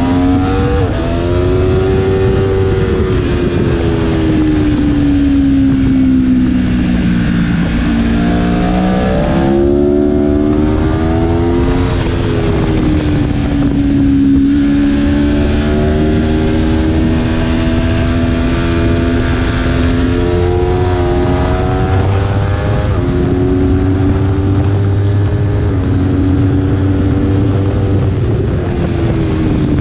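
Aprilia Tuono V4 1100's V4 engine heard from on board at speed. Its pitch falls as the bike slows for corners, then climbs under hard acceleration, with several quick upshifts in the last third as it pulls up through the gears. Wind rush over the microphone runs underneath.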